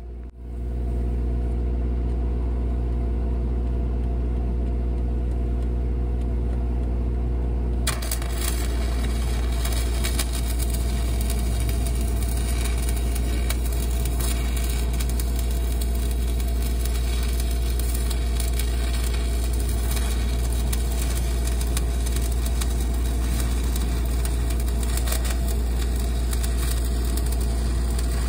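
Stick welding with 3/32-inch 7018 rod: the arc strikes about eight seconds in and then runs with a steady crackle. A steady low engine hum runs underneath.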